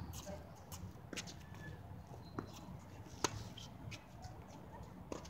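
Tennis balls being played on an outdoor hard court: a series of sharp pops from balls striking racket strings and bouncing on the court surface, the loudest a little past three seconds in.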